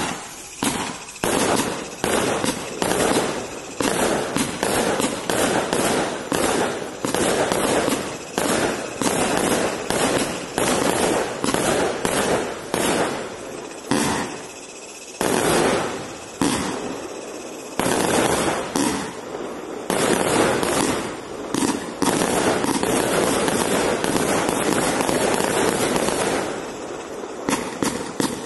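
A 200-shot compound firework cake with 20 mm tubes firing in quick succession: sharp launch shots and bursts several times a second, with crackling breaks between them. In the second half the crackle becomes dense and almost unbroken.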